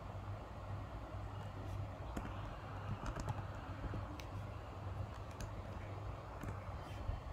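Computer keyboard typing: irregular, scattered keystroke clicks over a steady low hum.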